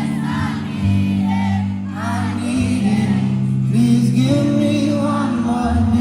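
R&B/pop song with a sung melody of wavering, held notes over sustained low chords.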